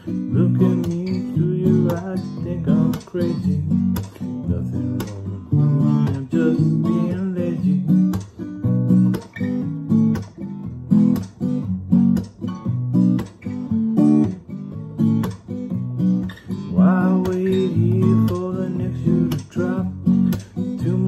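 Acoustic guitar strummed in a steady rhythm, chords played without singing.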